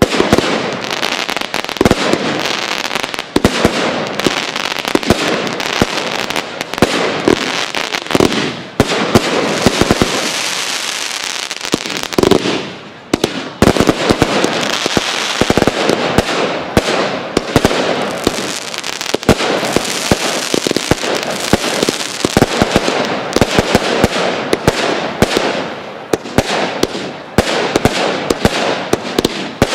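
Professional fireworks display: aerial shells bursting in rapid, overlapping bangs. It starts suddenly and eases briefly twice before building again.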